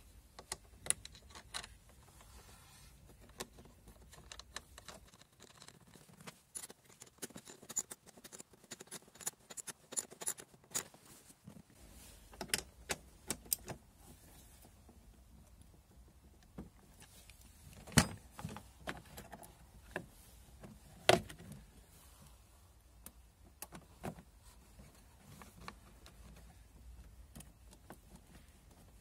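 Small metal clicks and clinks of a car battery terminal clamp and its fittings being handled and fitted onto the battery, coming in a quick run for several seconds, then two louder knocks about three seconds apart and a few scattered clicks.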